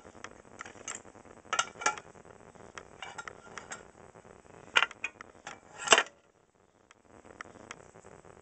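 Small metal parts clicking and clinking as lamp sockets on a metal bracket are handled and fitted to a clock movement: a scatter of light taps with a few sharper clinks, two close together about a second and a half in and the loudest around five and six seconds in.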